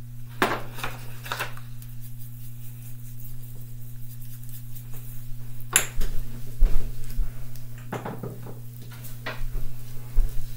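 Kitchen handling sounds at the stove: scattered clicks, knocks and clinks of utensils and pans, the sharpest a little before the middle, over a steady low hum.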